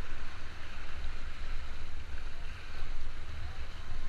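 River water rushing steadily around a drifting rubber raft, with wind buffeting the microphone in a low, uneven rumble.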